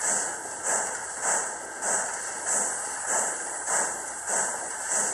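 Digital sound decoder in a Piko HO-scale class 83.10 steam locomotive model playing steam chuffs through its small speaker. The chuffs are hissy, evenly spaced at a little under two a second, and synchronized with the turning driving wheels.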